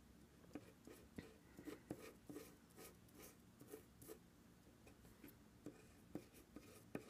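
Faint, irregular light scraping and tapping of a small metal spatula stirring colour gel and crystal powder into a paste on a palette sheet.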